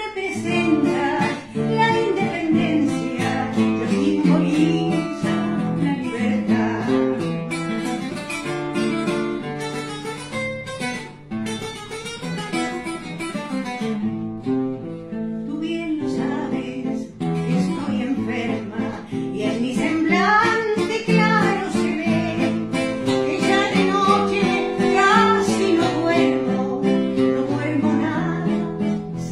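An elderly woman singing a song, accompanied by an acoustic guitar strummed and plucked by the man beside her.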